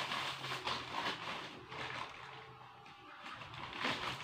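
Irregular rustling and knocking handling noises as items are moved about on a table, over a faint steady low hum.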